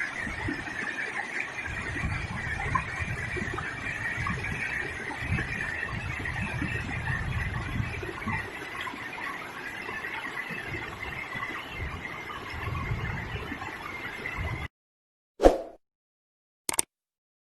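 River water flowing: a steady noise with a low rumble that swells and fades. It cuts off suddenly near the end, followed in silence by a short loud hit and then a brief click.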